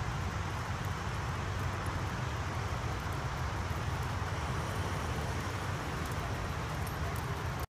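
Steady outdoor background noise, a low rumble with a hiss over it, that cuts off suddenly near the end.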